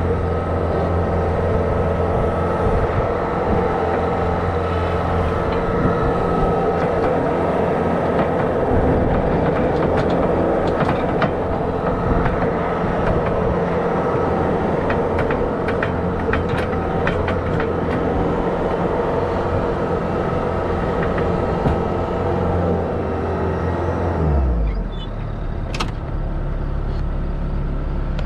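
Bobcat skid-steer loader's engine running steadily, with scattered knocks and clanks in the middle stretch, then dropping to a lower, steady engine speed near the end.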